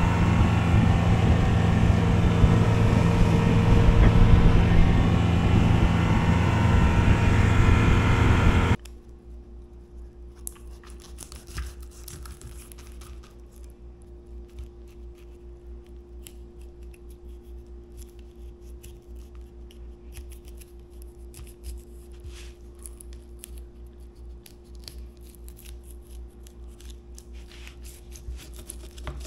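A boat's motor running at speed, with wind and water rush, for the first nine seconds, then cutting off abruptly. After it, a knife working on a porgy on a plastic cutting board: quiet scraping, slicing and small clicks over a faint steady hum.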